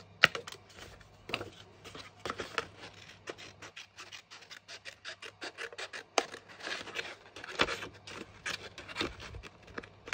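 Small scissors cutting through folded cardstock, a long run of short snips at an uneven pace.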